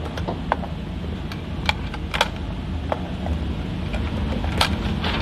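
Steady low hum with about six sharp clicks and knocks scattered through it, the loudest near the end.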